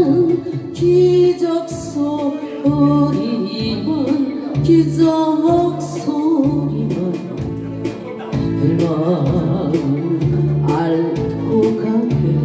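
Korean trot karaoke backing track with a steady beat, and a woman singing over it through a microphone and PA speaker.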